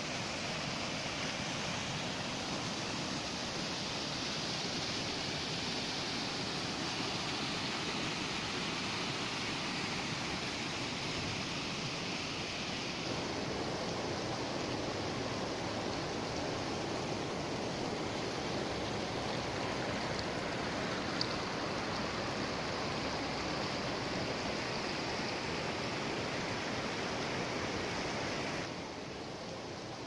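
Swollen, muddy river water rushing over rocks through rapids and a waterfall, a steady loud rush of water. The sound shifts in tone about halfway through and drops a little near the end.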